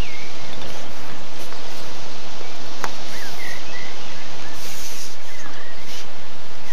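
Steady, loud outdoor background noise with a few short bird chirps, and one sharp click a little before halfway.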